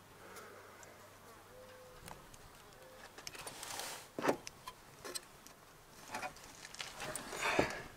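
A flying insect buzzing faintly in short passes, with a few knocks and scuffs; the loudest knock comes about four seconds in and a longer scuff near the end.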